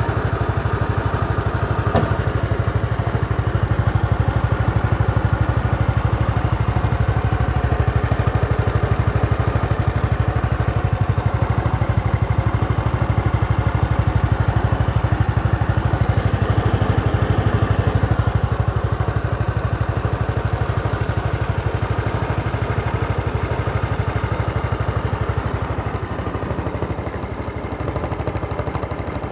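Honda SES 125 Dylan scooter's single-cylinder four-stroke engine idling steadily, with one light click about two seconds in.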